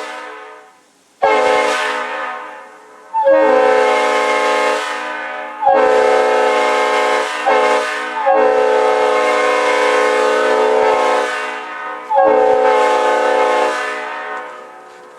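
Leslie multi-chime railroad air horn sounding about six blasts of one to four seconds each. Each blast opens with a brief upward scoop in pitch into a full chord and then fades off.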